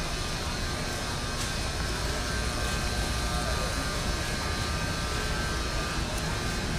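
Steady background drone and hiss inside a big warehouse store, ventilation and refrigeration hum under faint shopper and cart noise.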